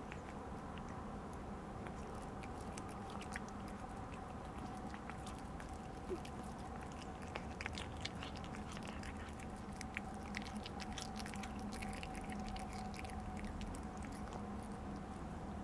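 A domestic cat chewing and biting food, a quick run of small sharp clicks and crunches that is busiest through the middle and thins out near the end.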